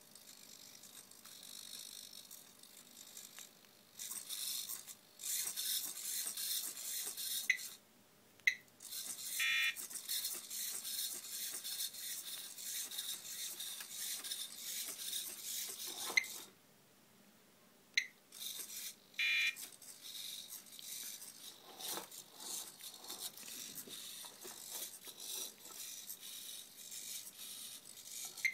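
The small hobby servo motors of a homemade hexapod robot buzz in stretches of a few seconds as it walks, stopping and starting again several times. A few short, sharp high beeps fall in the pauses.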